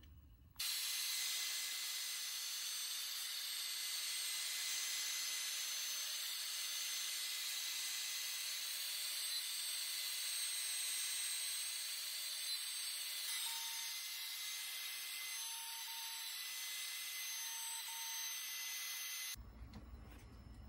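CNC router spindle running as its bit mills a flat pocket into a wooden baseball bat: a steady high-pitched hiss with thin whining tones. It starts abruptly about half a second in and cuts off abruptly near the end.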